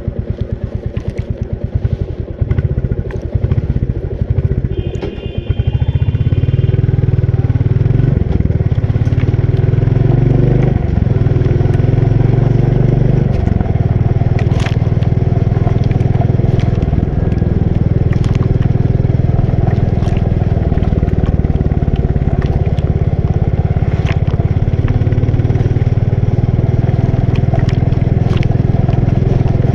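Royal Enfield Bullet 350's single-cylinder four-stroke engine running under way, uneven and pulsing for the first few seconds, then pulling steadily. Its note steps a few times in the first fifteen seconds as it changes gear, with occasional light clatter over the road.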